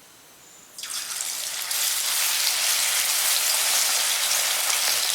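Masala-marinated chicken pieces going into hot sunflower oil in a pan, setting off a sizzle that starts suddenly about a second in and gets louder a moment later as more pieces go in.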